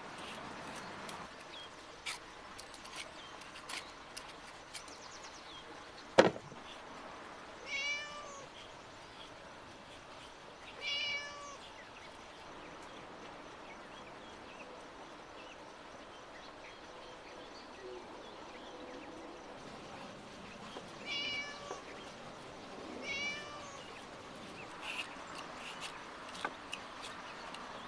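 A black cat meowing four times, short calls that rise and fall in pitch, in two pairs with a long gap between them. A single sharp click comes about six seconds in, and near the end there are light scraping ticks of a vegetable peeler on pumpkin.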